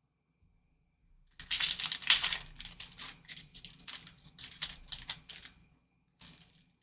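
A trading-card pack wrapper being torn open and crinkled: a quick run of crackles and snaps starts about a second and a half in and lasts about four seconds, with a short second crinkle near the end.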